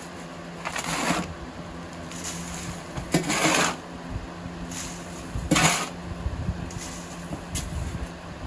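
Coop sand shoveled onto a homemade sieve of metal fencing on a wooden frame, each shovelful landing as a gritty rush of sand and debris on the mesh, three louder ones about a second, three seconds and five and a half seconds in. Under it a box fan hums steadily.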